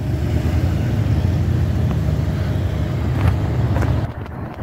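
Steady low rumble of downtown street traffic, with a couple of faint ticks a little past three seconds; it eases off about four seconds in.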